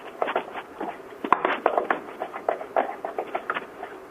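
Thick choux paste being stirred and worked with a spatula in a stainless steel saucepan, a run of irregular soft slaps and scrapes with the loudest knock about a second in. This is the drying-out stage of the choux paste over the heat, before it starts to stick to the bottom of the pan.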